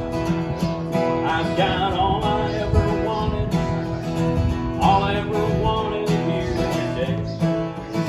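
Steel-string acoustic guitar being played, chords ringing steadily.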